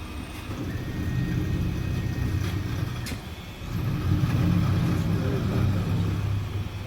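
CNC milling machine running, a steady low mechanical hum that swells twice, with a faint high whine for a couple of seconds near the start.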